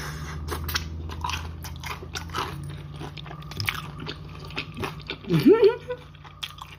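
Close-up crunching and chewing of crispy fried chicken, many small crisp cracks. About five seconds in comes a short vocal sound that rises in pitch.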